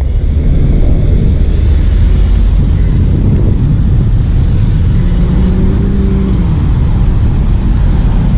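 Steady roadside traffic passing close by: cars, taxis and a jeepney-style multicab, with engines and tyres making a continuous low rumble. About five seconds in, one vehicle's engine drone stands out and dips slightly in pitch as it goes past.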